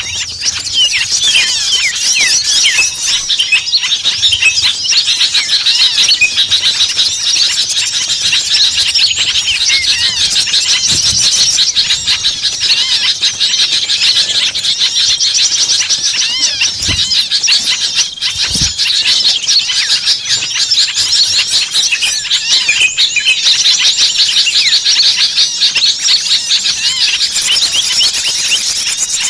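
A dense, unbroken chorus of many small songbirds chattering and calling at once, with rapid overlapping high-pitched chirps and trills. This is a bird-lure recording of agitated small birds, the noisy commotion used to draw other small birds in.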